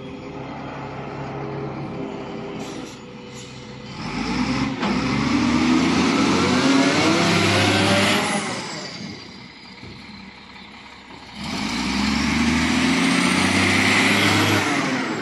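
Caterpillar 950H wheel loader's diesel engine idling, then revved twice: each rev raises the engine note and brings in a high whine that falls away as the engine drops back to idle, the first about four seconds in and the second near the end.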